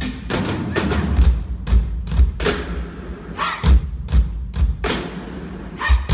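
A drum ensemble of marching snare drums and drum kits playing a driving rhythm: sharp stick hits over heavy low bass-drum thumps.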